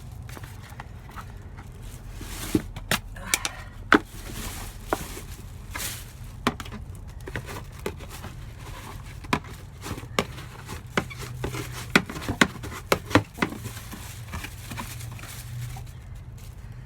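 Irregular knocks, taps and rustling as a rabbit's litter tray is emptied of used bedding while a hutch is cleaned out.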